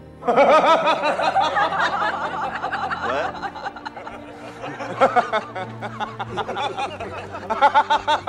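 Men laughing heartily: a long laugh of quick repeated bursts starting just after the beginning, quieter chuckling in the middle, and another burst of laughter near the end.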